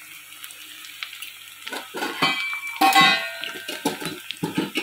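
A spoon stirring and scraping frying onion masala in a clay pot over a faint sizzle, with clattering utensil sounds and a loud clink that rings briefly about three seconds in.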